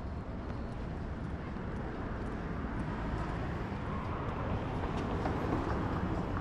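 Downtown street ambience of vehicle traffic going by, swelling somewhat louder in the second half as a vehicle draws closer.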